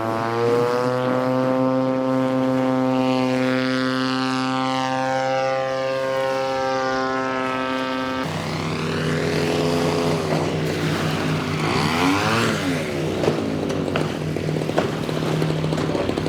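Radio-controlled model airplane engines and propellers running as the planes fly, with the pitch sliding slowly as they pass. About eight seconds in the sound changes abruptly to another steady engine note, with further pitch glides of planes coming and going.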